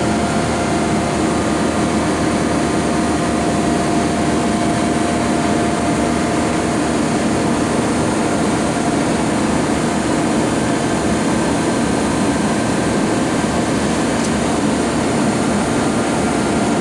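Steady whir and hum of a powered-up Mazak VCN 410A-II CNC vertical machining center: its cooling fans and auxiliary units running with the drives on, a faint steady tone riding over the noise.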